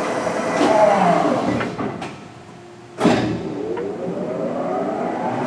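Tuda Jumbo engine lathe's headstock and spindle with its 39-inch chuck winding down with a falling whine until it goes nearly quiet. About three seconds in there is a sharp clunk, and the spindle then speeds up again with a rising whine.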